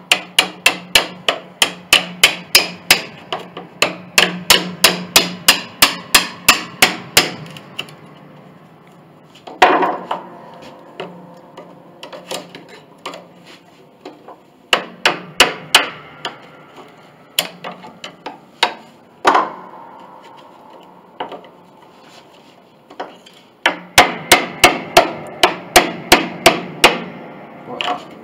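Hammer tapping a chisel driven into a glued wooden joint on an 1886 Steinway upright, working the piece loose. Runs of quick metal-on-metal taps at about three a second, with single heavier blows between the runs.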